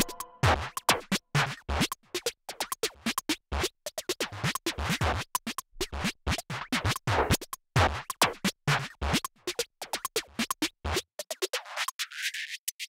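Background music chopped into many short stuttering hits, falling silent about two seconds before the end.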